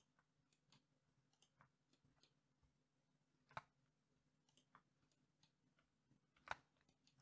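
Near silence broken by faint computer mouse clicks and keyboard key presses, two of them sharper, about three and a half and six and a half seconds in, over a faint steady hum.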